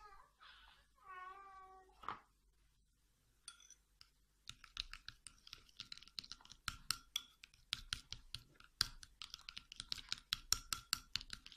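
Metal spoon clicking and scraping against a glass bowl as a thick cream-and-powder paste is stirred: a fast, irregular run of clicks from about four and a half seconds in. Near the start come two short, high, wavering cries.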